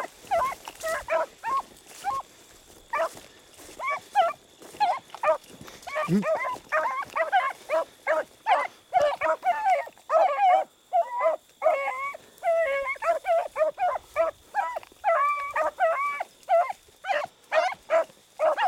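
A pack of beagles baying as they run a rabbit's track: many short, pitched bays that overlap, scattered at first and coming thick and fast from about eight seconds in.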